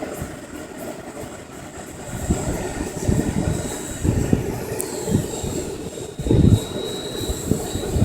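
GAUI Hurricane 550 RC helicopter in flight: a thin high motor and rotor whine that slides down in pitch a little past the middle, over an uneven low buffeting rumble.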